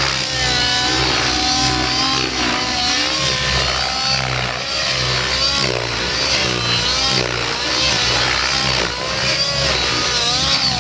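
Nitro-powered RC helicopter in aerobatic flight, its engine and rotor note rising and falling continually as it is thrown through manoeuvres.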